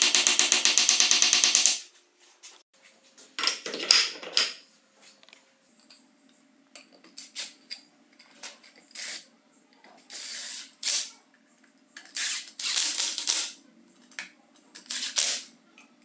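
A fast, loud mechanical rattle that cuts off about two seconds in. Then a small electric screwdriver runs in several short bursts, driving the screws of the chisel mortiser's cover panel, with small metal clicks between the bursts.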